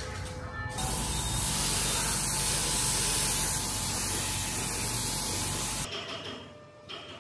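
Compressed-air spray gun hissing steadily as it sprays the wooden car body. It starts about a second in and cuts off near the end.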